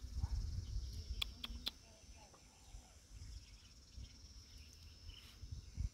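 Steady high-pitched chirring of insects, with low rumbling noise underneath and two sharp clicks about a second in.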